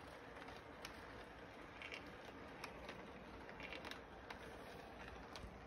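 Faint steady running of a toy electric train circling its track, with light irregular clicks from the wheels as the cars roll over the rails.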